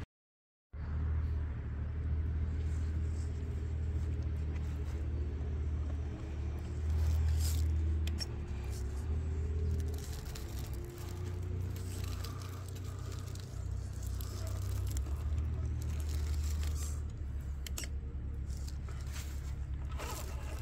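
RC scale crawler's electric motor and gearbox whining as it crawls over rock, the pitch gliding up and down with the throttle, over a steady low rumble. The sound cuts out completely for a moment at the very start.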